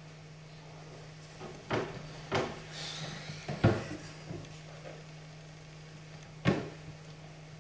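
Wooden chess pieces being set down on a wooden board: three sharp knocks in quick succession in the first four seconds, with a brief rustle among them, and one more knock near the end.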